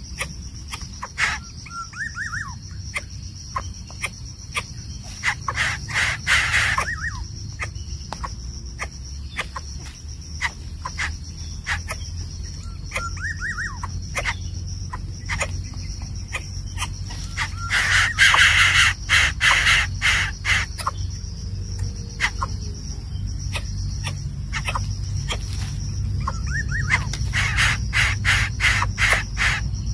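Outdoor ambience of a steady insect drone like crickets, with many scattered sharp clicks and a few short rising bird chirps. Two harsh, raspy calls come through, one about six seconds in and one about eighteen seconds in.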